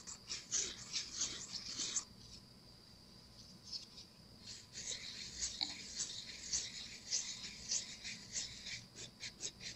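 Nail file rasping back and forth across the rim of a cured epoxy resin casting, smoothing its rough edge. It comes as rapid scratchy strokes, pauses for a couple of seconds after about two seconds, then starts again.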